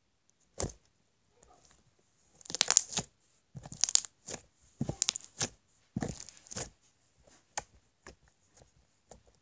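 Homemade slime being poked and squeezed by hand, giving irregular bursts of crackling clicks, the loudest about two and a half to three seconds in.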